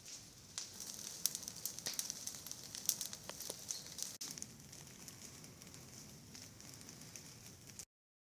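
Forest fire burning through dry leaf litter and brush: crackling and sharp popping over a steady hiss, the pops thickest in the first half. The sound cuts off abruptly near the end.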